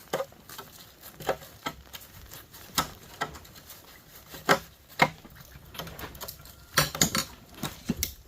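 Irregular clicks, taps and metallic clinks of hand tools and parts as a line conditioner is taken apart, with a quicker cluster of clicks near the end.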